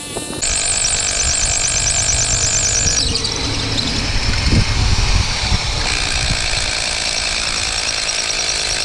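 Bosch SDS rotary hammer drilling a half-inch hole into a concrete foundation wall. It starts about half a second in and runs steadily with a fast rattling hammer pulse, changing tone twice as the bit bores in.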